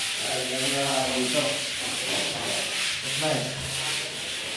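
Continuous rasping, hissing noise like sanding, with a few faint wavering pitched sounds mixed in, the first lasting about a second and a half and another a little past three seconds in.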